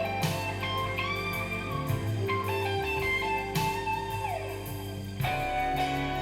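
Blues-rock instrumental break: a lead electric guitar plays bent, gliding notes over bass and drums, and the band moves into a new section about five seconds in.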